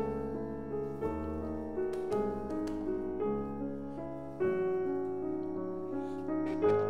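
Background piano music: a gentle piece of sustained notes and chords changing about once a second.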